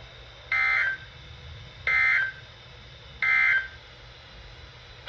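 Emergency Alert System end-of-message signal: three short bursts of two-tone SAME digital data, about 1.3 seconds apart, marking the end of the alert. A faint low hum sits underneath.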